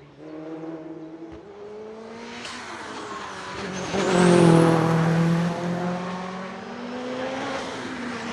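Racing car engine at full throttle, growing louder as the car comes up the hill. It passes loudest about four seconds in with a rising high whine, then eases as it draws away.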